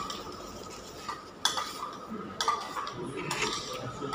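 Cutlery and plates clinking at a dining table: about four short separate clinks, roughly a second apart, over low room noise.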